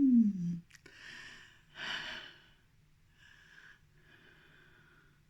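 A person's voice giving a short falling "mm", followed by several quiet breathy puffs of breath or sniffs spaced about a second apart.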